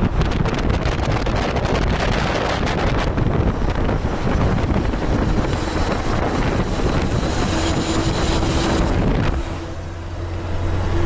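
Wind rushing over the microphone held out of a KamAZ truck's open side window while driving, mixed with engine and road noise. About nine seconds in the wind cuts off as the camera comes back into the cab, leaving the steady drone of the truck's diesel engine.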